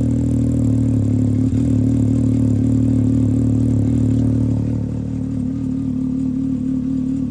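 Can-Am Maverick X3's turbocharged three-cylinder engine idling steadily through a Treal Performance sport exhaust, freshly started. It gets a little quieter about five seconds in.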